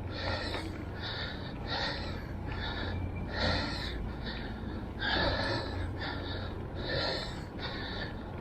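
A cyclist's heavy, rapid panting while pedalling uphill in a low gear, each breath coming roughly every three quarters of a second: the breathing of hard exertion on a climb.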